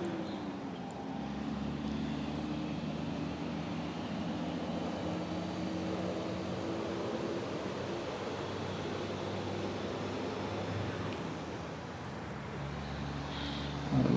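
A steady engine drone with a low, even hum over a wash of hiss, its pitch dipping slightly about a second in.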